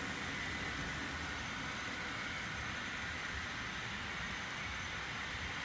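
HO-scale model freight train running along the layout track: a steady, even rolling whir of wheels on the rails and the locomotive motors.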